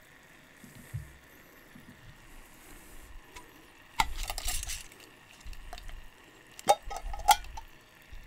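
A glass mason jar and its metal screw lid being handled: a sharp clink about four seconds in with a brief rush of noise after it, then two louder clinks near the end, about half a second apart.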